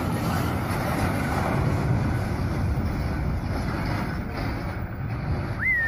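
Heavy trucks rumbling, a dense low noise with wind buffeting the microphone. Near the end a whistle rises sharply and holds a high note.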